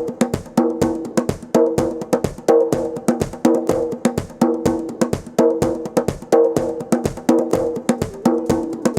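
Instrumental music: a quick, even rhythm of short wood-block-like percussive hits over repeating pitched notes, with no bass line yet.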